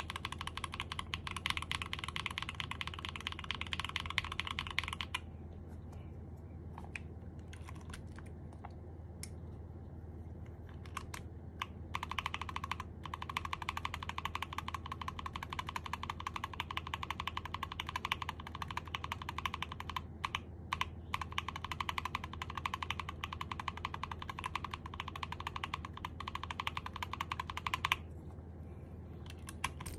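Typing test on a custom mechanical keyboard fitted with KTT Matcha switches: fast, dense keystrokes for about five seconds, then a few scattered single keypresses, then steady fast typing again that stops a couple of seconds before the end.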